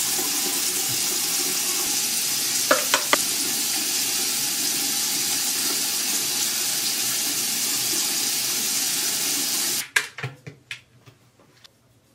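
Bathroom sink tap running in a steady, loud stream, with a couple of sharp knocks about three seconds in. The water shuts off abruptly about ten seconds in, and a few small clicks follow.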